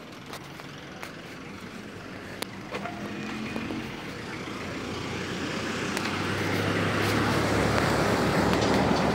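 A motor vehicle approaching on the street and passing close by: its engine and tyre noise grow steadily louder over several seconds and peak near the end.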